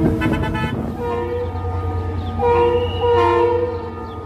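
Train horn sounding: a short toot, then a horn of several notes held from about a second in, swelling in two louder blasts near the end, over a steady low engine rumble.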